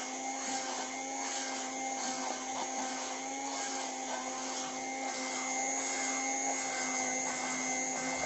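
Electric hand blender running steadily at one speed, whipping strained milk cream (malai) into whipped cream; a continuous motor whine.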